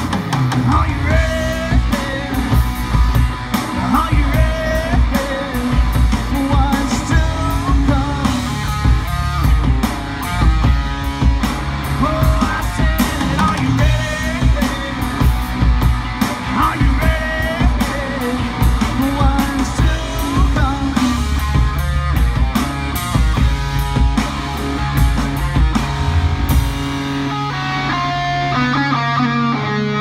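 Live rock band playing: electric guitars and a drum kit under a male lead vocal. Near the end the drums and cymbals stop and a held guitar chord rings on.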